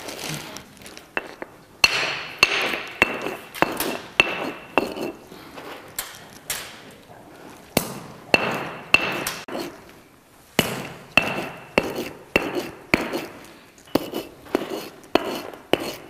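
A hand stone pounding kezwan (terebinth) berries on a flat stone slab: sharp stone-on-stone knocks with a short ringing, about two a second in runs of several blows with brief pauses between.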